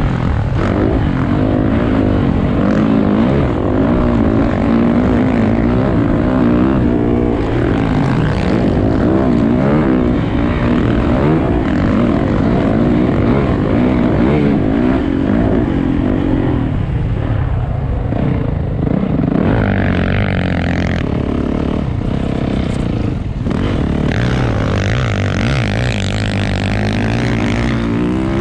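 A racing vehicle's engine under hard use, its pitch climbing and dropping again and again as it accelerates and slows through corners, over a steady rushing noise. It eases off for a few seconds past the middle, then picks up again near the end.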